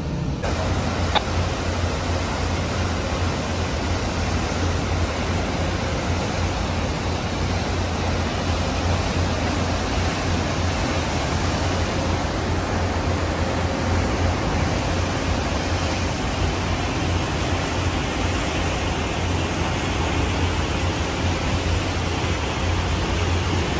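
Steady rushing of churning water in a canal lock chamber, with a low rumble underneath.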